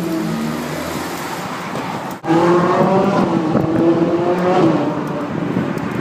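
Ferrari 458 Italia's V8 engine and exhaust. The engine note falls as the car eases off over the first two seconds. After a sudden break about two seconds in, it comes back louder and rises gently under acceleration, then dips just before the five-second mark.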